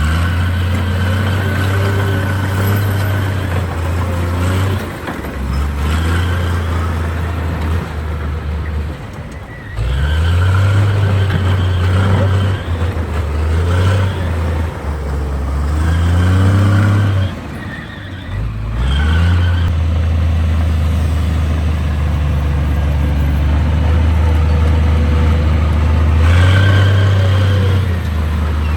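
Heavy diesel engine of earthmoving machinery working under load, revving up and easing off again and again so that its pitch rises and falls. It drops back briefly about ten and eighteen seconds in.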